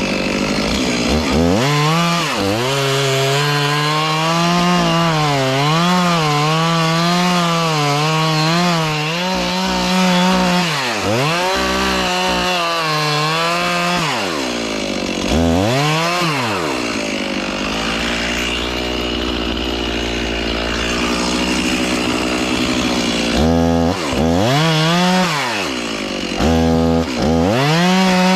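A two-stroke chainsaw cutting the back cut through a leaning tree's trunk toward the hinge. It runs at high revs with a wavering pitch as the chain bites. The revs drop and climb back several times, then ease to a lower, steadier run for a few seconds in the middle before revving up again near the end.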